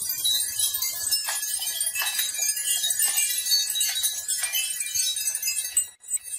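Many glass marbles clattering and clinking together as they roll down a marble run track, a dense stream of small clicks with a brief break near the end.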